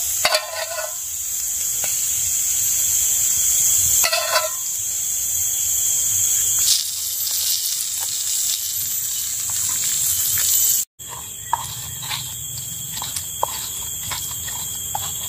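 Loud, steady, high-pitched chorus of forest insects. After a brief cut-out about 11 seconds in, a stone pestle taps and grinds on a plate a few times.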